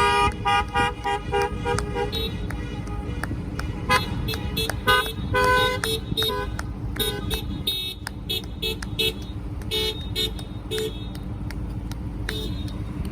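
Many car horns honking in short, overlapping toots, over the steady rumble of traffic.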